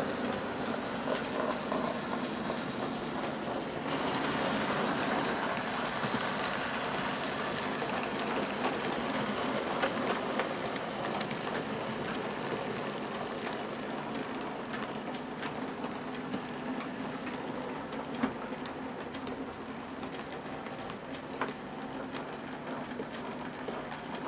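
OO gauge model trains running on the layout: small electric motors whirring, with wheels clicking over the rail joints. A higher whine joins about four seconds in.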